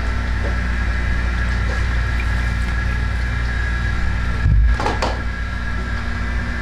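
Steady hum of a wok stove running, burner and extractor fan, with a low thump and two sharp knocks about four and a half to five seconds in.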